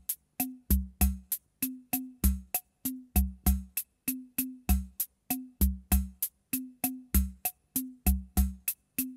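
Background music: a sparse drum-machine beat of sharp hits, each with a deep pitched bass note, about three hits a second with gaps of silence between them.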